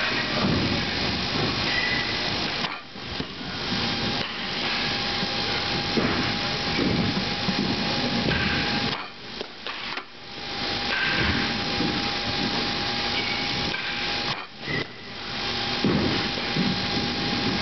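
Steady machine hiss with a thin constant hum, dropping away briefly three times.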